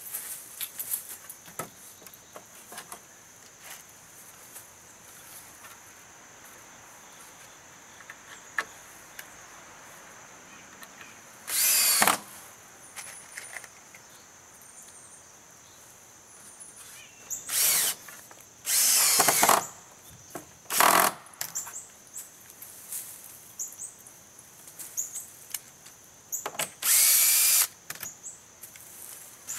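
Cordless drill driving screws through a wooden cross-brace board into a fence gate, in five short runs of under a second each, with quiet handling between them.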